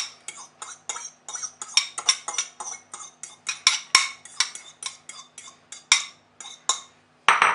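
A metal utensil scraping and tapping chopped onion out of a small ceramic bowl into a glass bowl: a quick series of clicks and scrapes, about three or four a second, with a louder clatter just before the end.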